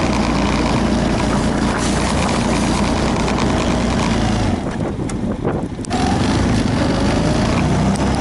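An engine running steadily, with a dip in the sound for about a second midway through.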